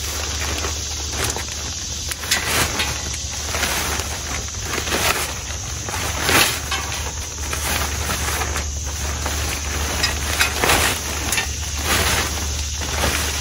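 Patio chair cover rustling and crackling as it is pulled and fitted over a chair, with irregular scuffs and clicks over a steady low hum.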